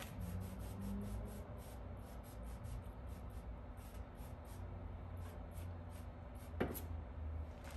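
Plastic trigger spray bottle spritzing a chuck roast, a quick run of short hissing squirts about three a second, with one sharp knock near the end.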